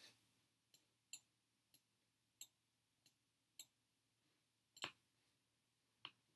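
Faint, irregular clicks of a computer mouse button as images are selected and dragged, about eight in all, with the loudest about five seconds in.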